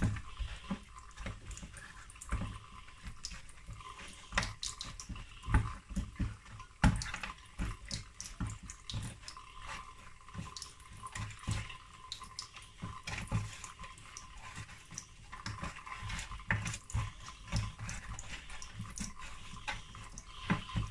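A gloved hand rubbing seasoning into raw mackerel steaks on a baking tray: wet, irregular handling sounds of soft slaps and knocks as the pieces are turned and pressed. There is one sharper knock about seven seconds in.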